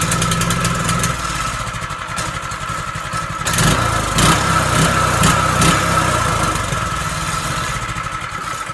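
Stock Predator 212 single-cylinder four-stroke engine on a mini bike running, blipped louder several times around the middle. It runs in a way rated "not the best", but running.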